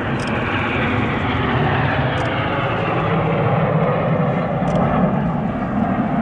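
Jet noise from a formation of Blue Impulse Kawasaki T-4 jet trainers flying past: a steady rushing noise whose pitch slowly falls as they go by.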